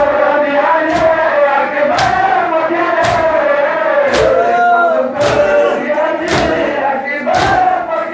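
Male voices chanting a noha, a Muharram mourning lament, with sharp strikes of hands on bare chests about once a second in time with the chant: matam.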